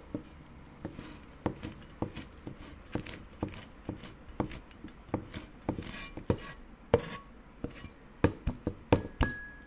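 Cleaver chopping kaffir lime leaves on a bamboo cutting board: a run of sharp knocks about two a second, coming closer together near the end.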